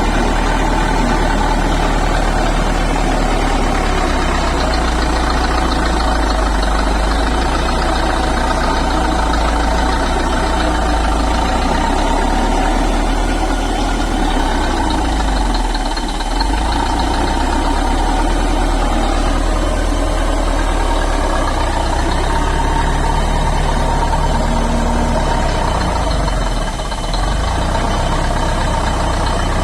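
Bulldozer's diesel engine running steadily, with a brief dip in level near the end.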